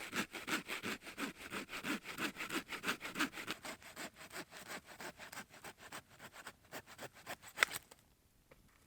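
Hand saw cutting through wood in quick, even back-and-forth strokes, several a second. The strokes stop about eight seconds in.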